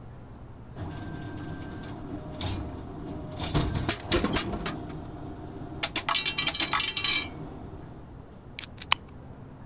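Glass breaking and clattering in two bursts of sharp, ringing clinks, the first about three and a half seconds in and the louder second around six seconds in, with a few light clinks near the end.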